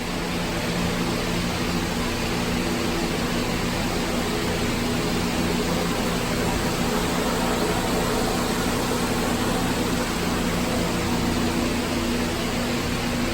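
Large barn ventilation fans running: a steady rush of air with a low, even hum.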